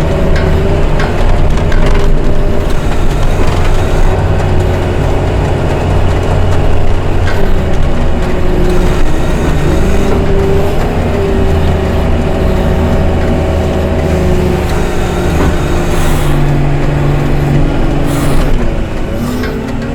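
Diesel engine of a heavy snow-removal machine running steadily, its pitch rising and falling a little as it works, with a few knocks near the end.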